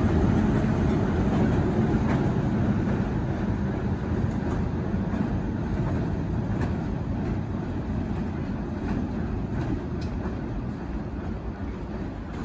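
TEM18DM diesel-electric shunting locomotive running away along the track, its low engine rumble and wheels on the rails fading steadily, with a few faint clicks from the rails.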